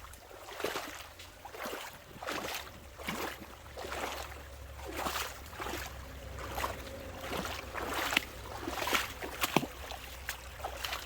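Footsteps wading and splashing through a shallow rocky creek, a step about every second, over the trickle of the stream.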